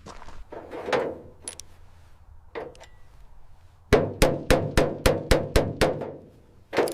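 Hammering: a few scattered knocks, then a quick run of about eight sharp blows, roughly four a second, each with a brief ringing note, and one more knock near the end.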